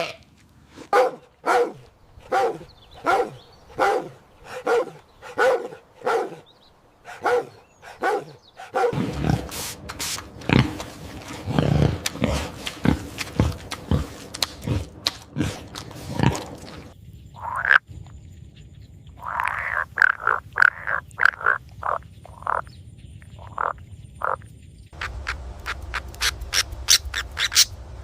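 Animal calls from several clips in a row. First comes a steady series of repeated calls, a little under one a second. Then a noisier stretch with clicks, then a quick run of short, higher calls.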